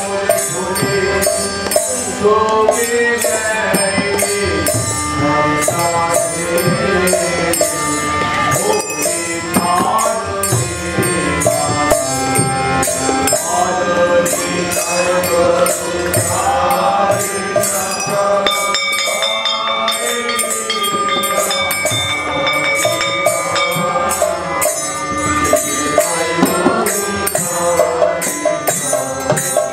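Devotional group music: a khol barrel drum and small brass hand cymbals (kartal) struck in a steady rhythm, with voices singing over them.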